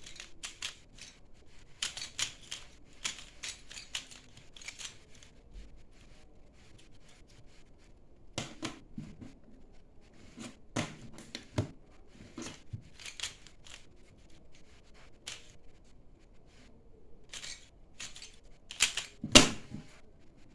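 Moyu Meilong magnetic pyraminx being turned quickly in a speed solve: a fast, irregular stream of small plastic clicks and clacks as the layers and tips snap into place, with a few louder clacks midway and near the end. The puzzle has just been lubricated.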